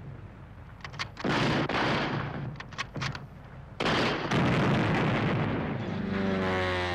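Battle sound: a few sharp gunshots and two long, heavy explosions, the second about four seconds in, then a falling whine near the end.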